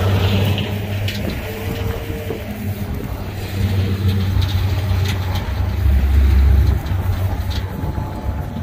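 Large farm tractor's engine running under work, a steady low drone. A brief higher whine comes in about a second and a half in, and the drone swells louder for a moment near six seconds in.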